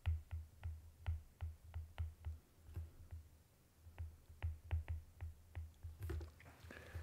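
Stylus tip tapping and clicking on a tablet screen during handwriting: a run of short, faint clicks, each with a dull low thump, about three a second, with a brief lull near the middle.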